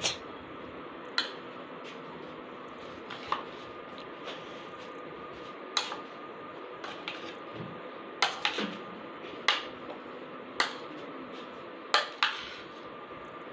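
A metal spoon clinking against the sides of a serving bowl while stirring a moist chickpea and potato salad, about ten sharp clinks at uneven intervals, bunched closer together in the second half. A faint steady hum runs underneath.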